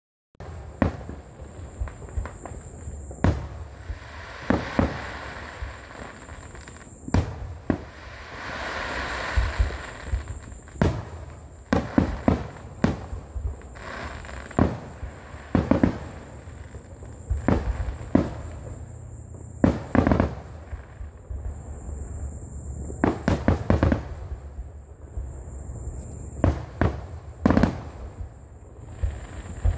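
Aerial fireworks bursting overhead: sharp bangs in quick, irregular succession. Two longer stretches of crackling hiss, a few seconds in and again near the middle, come from the glittering stars.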